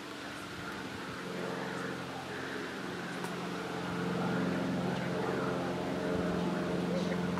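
A motor hums at one steady pitch and grows louder about four seconds in.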